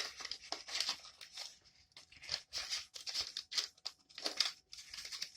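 Crinkling and rustling of packaging, many short irregular rustles, as items are put back into a denture repair kit's box.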